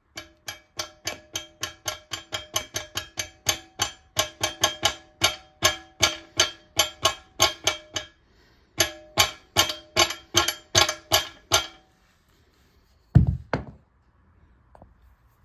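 Ratchet tool clicking steadily, about three to four clicks a second with a ringing tone on each, as a screw is tightened into a rubber expansion anchor. It pauses briefly twice, stops, and then comes a louder dull thud or two near the end.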